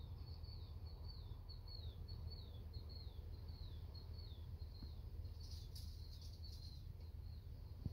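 A bird chirping in a steady series of short falling notes, about three a second, then a louder burst of chirping near the end, over a low steady hum.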